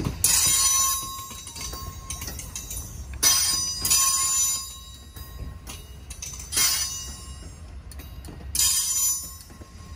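Train rolling by, a steady low rumble broken by short, sharp metallic squeals and rings from its wheels on the rails every one to three seconds.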